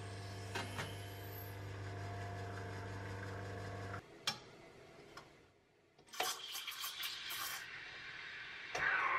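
Home espresso machine's pump running with a steady hum as water flows from the group head, stopping with a click about four seconds in. Light metallic clinks follow, and near the end comes a louder whooshing sound that falls in pitch.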